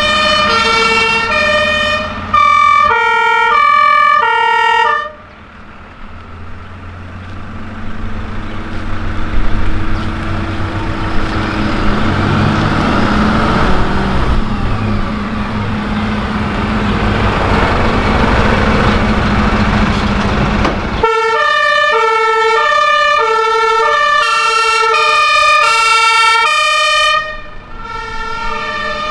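Fire engines sounding German two-tone sirens (Martinshorn), a high and a low note alternating, for the first five seconds and again from about 21 to 27 seconds. In between, a diesel fire truck's engine rumbles past close by, swelling and then fading; near the end a second siren with a different pair of notes is heard more faintly.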